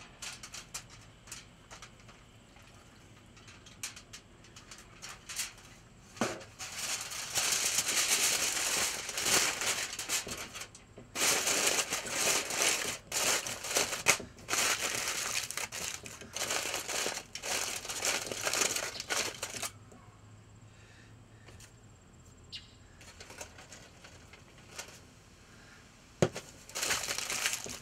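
Aluminum foil crinkling as it is folded and crimped shut around a pork loin, in long bursts for about twelve seconds. Near the end there is a single knock and a short crinkle.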